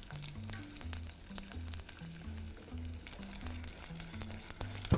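Cod cocochas cooking in oil with sliced garlic in a saucepan, a fine steady crackling of the hot oil, over background music with a slow bass line.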